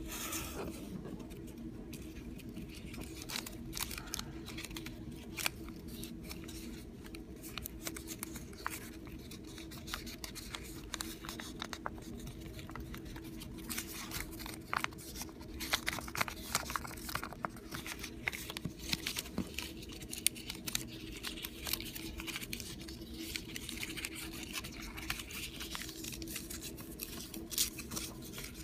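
A sheet of paper being folded and creased by hand: irregular rustling and crinkling with sharp clicks as the folds are pressed.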